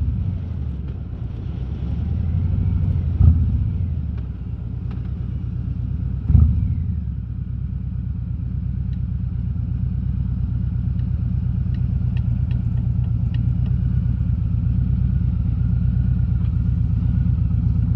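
Harley-Davidson Road King's V-twin engine running at cruising speed, a steady low rumble with wind noise, heard from a mic inside the rider's closed helmet. Two brief thumps stand out, about three and six seconds in.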